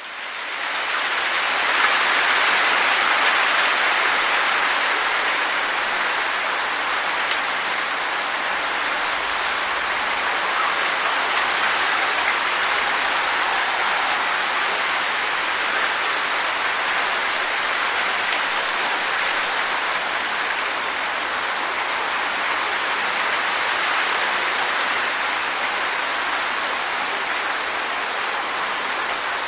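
Wind rustling through tree leaves: a steady hiss of leaf noise that fades in over the first second or two, then holds with gentle swells.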